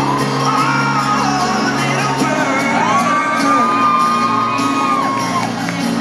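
Live pop band playing with guitars, a singer holding long, bending notes, and a stadium crowd whooping.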